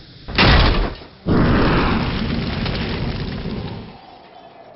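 Two loud boom hits about a second apart, the second fading away slowly over a few seconds: a cinematic logo-reveal sound effect.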